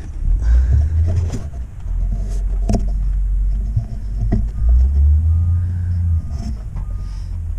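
Low rumble with a few sharp knocks. From about halfway through, faint short beeps repeat at an even pace, like a vehicle's reversing alarm.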